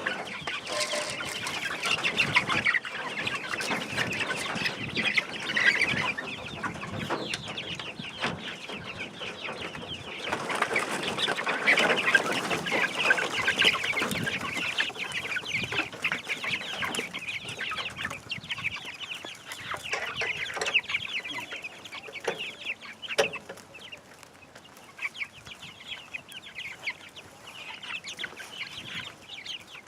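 A flock of backyard chickens clucking and calling continuously, busiest in the first half and thinning out later, with a few sharp knocks a little after the middle.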